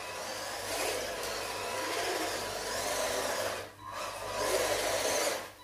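1/16-scale RC monster truck running on its brushed RC390 motor, tyres skidding and scrubbing on a polished hard floor. It comes in two runs, with a brief let-off almost four seconds in.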